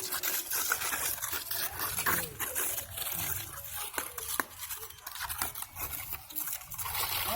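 Irregular scraping with scattered sharp clicks and taps, the sound of hand work on a building site.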